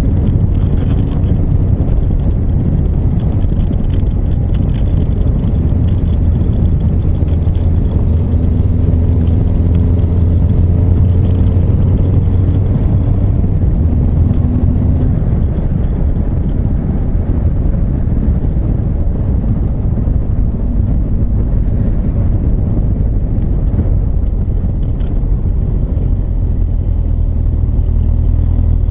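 Honda CB1300 Super Bol d'Or's inline-four engine running steadily as the motorcycle rides along, under a heavy, even low rumble of wind and road noise at the microphone.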